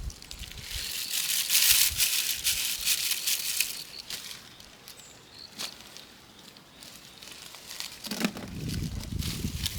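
Dry rustling and crinkling, loudest about one to four seconds in, with scattered sharp clicks and snaps. Some deeper handling noise comes near the end, and a cricket chirps faintly.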